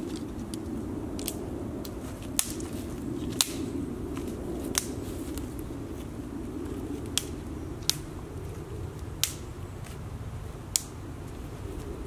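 Dry twigs snapping off a branch by hand: seven short sharp cracks at irregular intervals, over a steady low background rumble.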